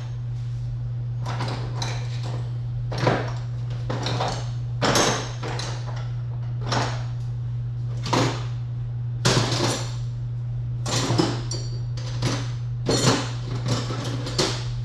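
Hand tools being handled: a string of separate metallic clanks and knocks, as when pliers are fetched from a toolbox and put to work on the engine. A steady low hum runs underneath.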